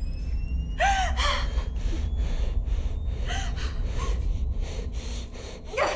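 A woman gasping and panting, with short breathless bursts of laughter, over a steady low rumble.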